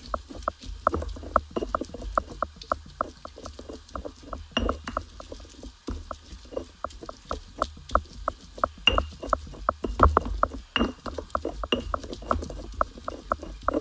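Stone pestle (tejolote) grinding and knocking in a volcanic-stone molcajete, crushing a green salsa: a quick, uneven run of gritty knocks, about four a second.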